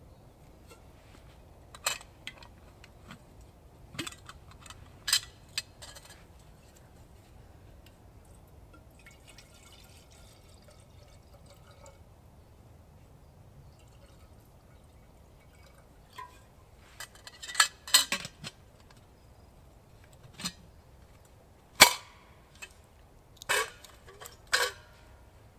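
Scattered sharp clicks and knocks, a few in the first seconds and a closer run in the second half, the loudest near the end.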